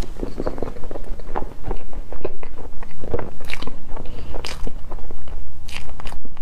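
Close-miked chewing of a soft, cream-covered pancake: a dense run of short, irregular mouth clicks and smacks.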